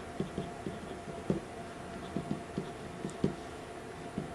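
Marker tip dabbing and tapping on cardstock to lay down small spots, a rapid irregular series of light taps, about three or four a second.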